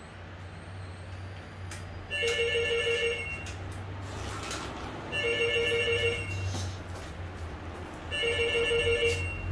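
A telephone ringing: three trilling electronic rings, each a little over a second long and about three seconds apart, over a low steady hum.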